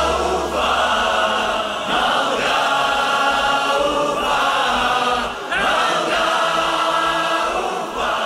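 Choir-like voices singing held notes without clear words, in phrases of about a second and a half, with a low bass note fading out at the start.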